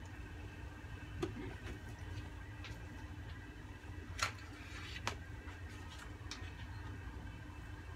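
A pot of kolak simmering over a gas hob burner: a faint steady low rumble with scattered small ticks and pops, the sharpest about four and five seconds in.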